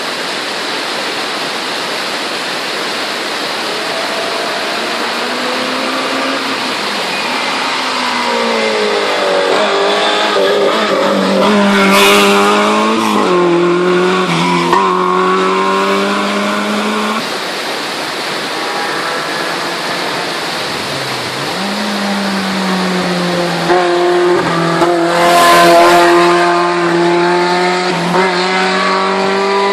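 Hillclimb race cars driven hard uphill, twice: each engine's note rises and drops back at every gear change, growing loudest as the car passes or nears, about twelve seconds in and again about twenty-five seconds in, with a sharp crack at each peak.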